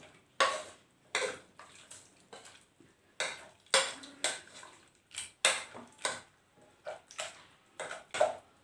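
A masher pounding boiled carrots in a pressure cooker pot, the metal knocking against the pot about every half second, a dozen or so knocks in all.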